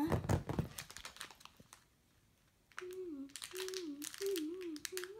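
Crinkling of a small plastic bag of beads and the snip of scissors cutting it open, in scattered sharp clicks and crackles. From a little past halfway a child hums a short falling phrase over and over.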